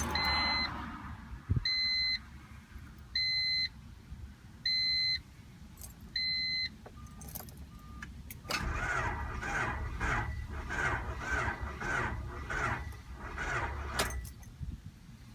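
Honda CRX with the key on: a warning chime beeps five times, about one and a half seconds apart. Then the starter cranks the engine in an even rhythm for about five seconds without it catching, and stops: the car's crank-no-start fault.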